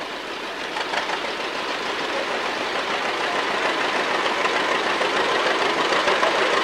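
An antique tractor engine running, growing slowly louder as it comes closer.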